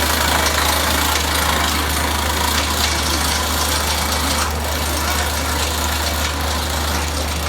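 Amusement ride's drive machinery running with a steady low hum under a constant wash of noise.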